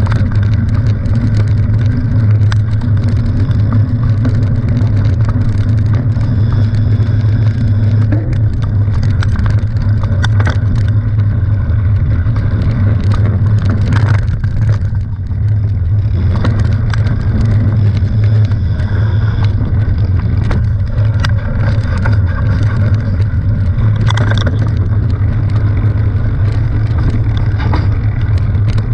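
Mountain bike riding down a dirt forest singletrack, heard through a handlebar-mounted camera: a steady low rumble from the tyres and the camera shaking on the bars, with frequent rattles and clicks from the bike over bumps.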